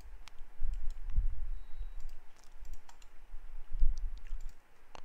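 Light, scattered clicks of a computer mouse and keyboard keys, irregularly spaced, over a low rumble.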